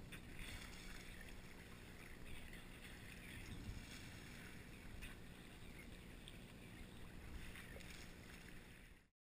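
Water sloshing and splashing against a sea kayak's hull as it is paddled, over a steady low rumble. The sound cuts off suddenly near the end.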